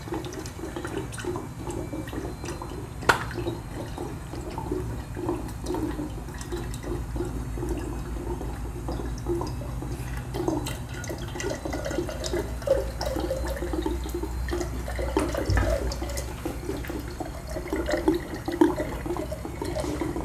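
Water running out of a water dispenser's rear drain tube and splashing steadily into a glass jug as the tank is drained. There is a single click about three seconds in.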